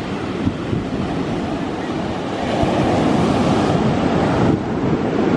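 Atlantic surf breaking and washing up the beach, with wind buffeting the microphone; a continuous loud rush and rumble that swells about two seconds in.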